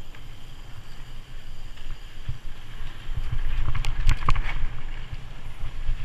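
Mountain bike riding down a dirt singletrack, heard from a camera mounted on the bike: a steady low rumble of tyres and wind on the microphone, with a burst of rattling clicks about four seconds in as the bike crosses rougher, rocky ground.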